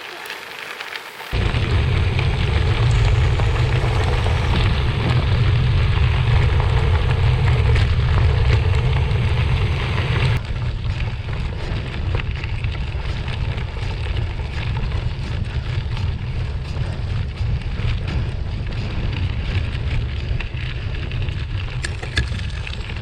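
Heavy wind buffeting on the microphone of a riding gravel bike, a loud low rumble that starts suddenly about a second in, over the hiss and crunch of tyres rolling on gravel.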